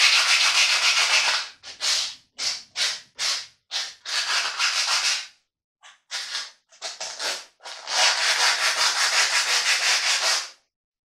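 Hand sanding of a cast iron wood stove door with 50-grit sandpaper, scrubbing embedded rust off the frame: quick rasping strokes with short pauses between them, then a longer unbroken stretch of sanding from about eight seconds in that stops shortly before the end.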